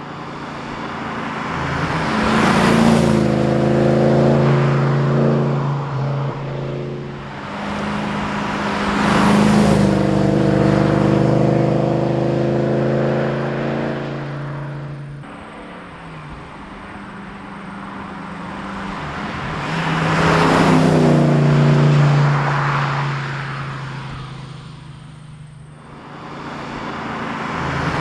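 MG RV8's 3.9-litre Rover V8 running through a single two-and-a-half-inch stainless steel exhaust with high-flow cats and mufflers, driving past three times. Each pass swells in level, then drops in pitch as the car goes by.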